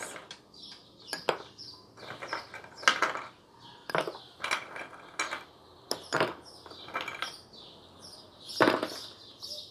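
Ice cubes being taken from a ceramic bowl and dropped into a glass of frothed coffee, a dozen or so sharp clinks of ice, spoon, bowl and glass spread irregularly. The loudest come about three seconds in and near the end.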